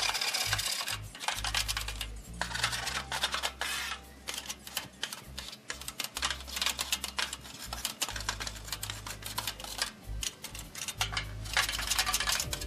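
A hand scraper scraping caked grease and debris off the burner tubes, flavorizer bar and firebox floor inside a propane gas grill, in quick, uneven, repeated strokes.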